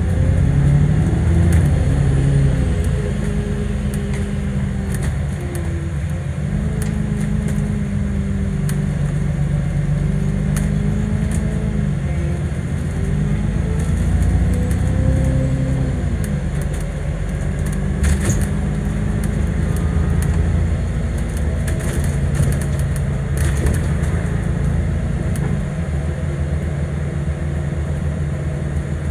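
Engine of an Alexander Dennis Enviro400 MMC double-decker bus, heard from on board while the bus is under way. Its pitch climbs and drops back several times as it changes gear. Occasional clicks and rattles come from the bus interior.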